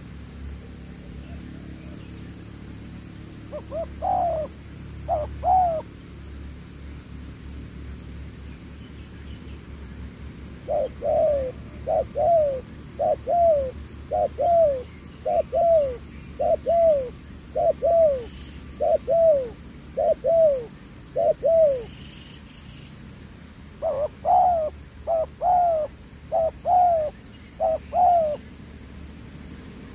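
Spotted dove cooing: a few coos about four seconds in, then a long run of about a dozen evenly spaced falling coos, roughly one a second, then a quicker, tighter cluster of coos near the end.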